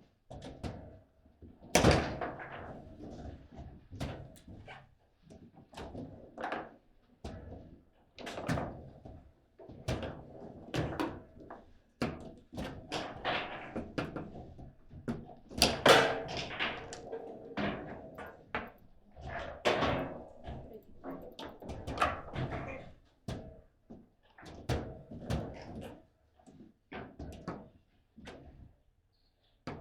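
Table football game in play: irregular sharp knocks and clacks of the ball being struck by the rod players and hitting the table, with a few harder shots, the loudest about two seconds in and again in the middle.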